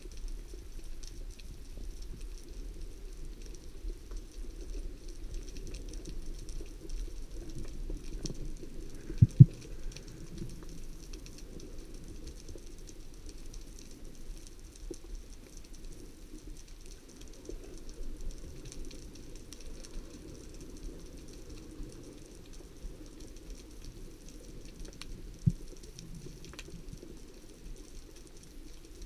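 Underwater ambience heard through a camera housing: a steady muffled low rumble with faint crackling. A sharp double knock sounds about nine seconds in, and a single knock comes near the end.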